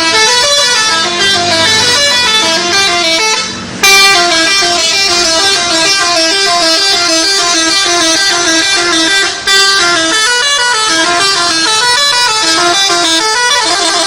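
Bus telolet horn, a multi-tone musical horn, playing a loud tune of quick stepping notes. It breaks off briefly twice and starts again, and near the end it changes to a faster warbling pattern.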